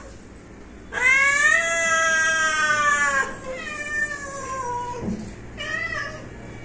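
Several domestic cats meowing for food at an empty bowl: a long drawn-out meow about a second in, running into a second meow that falls in pitch, then a shorter meow near the end.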